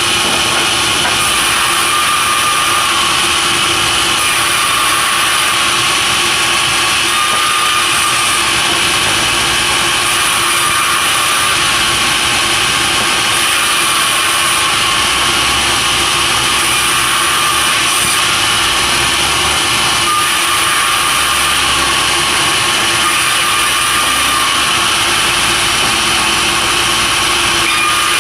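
Sawmill machinery running steadily and loudly: an unbroken mechanical noise with a constant hum, and no separate cuts or knocks standing out.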